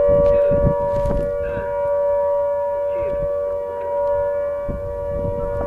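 Mine blast warning siren holding one steady, unchanging note, the warning that a blast is about to go off at the copper mine. A few faint knocks sound underneath.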